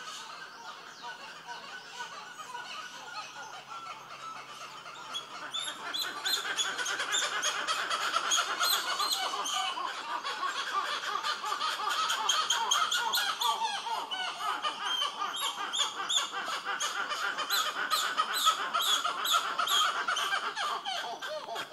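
Monkeys chattering in the tree canopy: a dense run of rapid, high chirping calls that grows louder about five seconds in.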